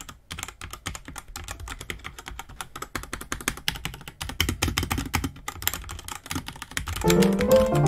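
Typing on a Lifesum 84-key tenkeyless wired mechanical keyboard with red (linear) switches: a fast, irregular run of key clacks. Background piano music comes in near the end, louder than the typing.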